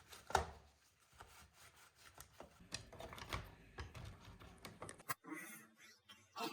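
Irregular small knocks, clicks and rubbing sounds of objects being handled.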